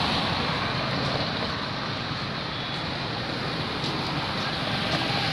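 Steady rush of wind on the microphone mixed with road and traffic noise from moving along the road.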